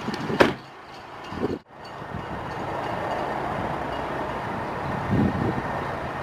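A car door on a Mercedes-Benz SLC shut once with a single thud about half a second in, followed by steady background noise.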